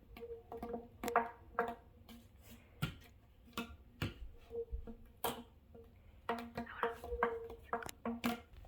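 A fidget toy being worked by hand: a quick, irregular run of clicks and pops, with short low tones sounding between them.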